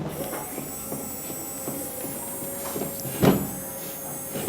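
Small battery-powered DC motor running steadily with a high whine, rattling the board it sits on with light clicks, then a loud thump about three seconds in. The motor is running weakly, and the teacher suspects a flat battery.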